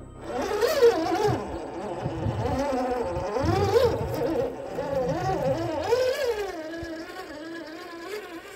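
Electric motor and gearbox of a scale RC rock crawler whining, the pitch rising and falling with the throttle as it climbs over rock. The sound slowly fades toward the end.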